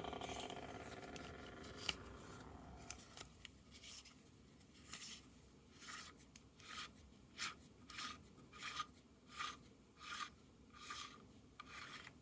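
Faint handling of a machined metal bottom bracket cup: a metallic ring dies away over the first couple of seconds, then comes a run of soft, short rubbing strokes, about one or two a second.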